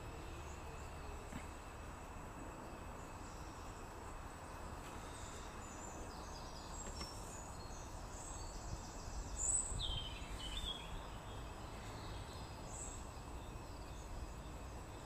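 Quiet background ambience: a steady low hum and faint hiss, with a few faint high chirps near the middle, the clearest about ten seconds in.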